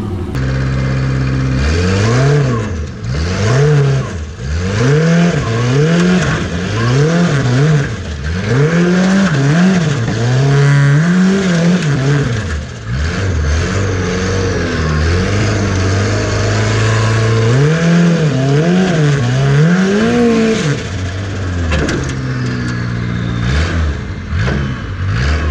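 Formula offroad buggy's engine, heard from on board, revving up and down in quick repeated throttle bursts as it climbs a dirt hill. It holds a steady high pitch for a few seconds around the middle, then goes back to bursts and settles lower near the end.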